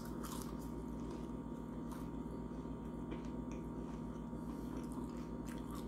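Steady low electrical hum of a quiet room, with a few faint crunches of a battered onion ring being bitten and chewed near the start and again near the end.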